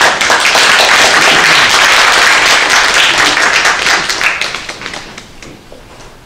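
Audience applause, many hands clapping. It starts suddenly, holds steady for about four seconds, then dies away about five seconds in.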